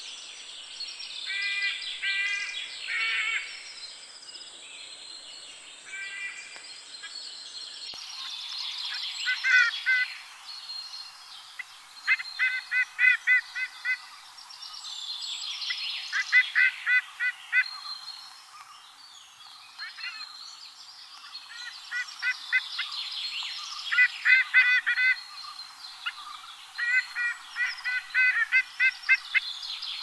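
Sea eagle calling: short bouts of several rapid, harsh notes, repeating every few seconds, with faint higher birdsong behind.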